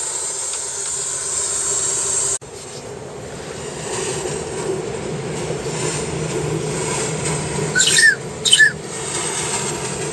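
Gauge 1 live-steam model of a DB class 01 steam locomotive running on its track: a steady running rumble with steam hiss that breaks off sharply about two seconds in, then builds up again as it approaches. About eight seconds in come two short, high, rising squeals.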